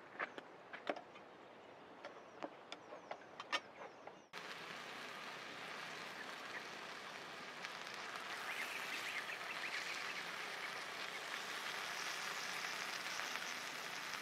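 Scattered sharp ticks and pops for about four seconds, then a sudden change to a steady sizzle with fine crackling, growing a little louder: burger patties frying in a grill pan on a portable gas stove.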